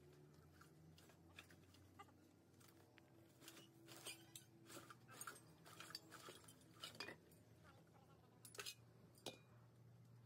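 Faint, scattered metal clinks and taps, busiest in the middle and latter part, over a low steady hum.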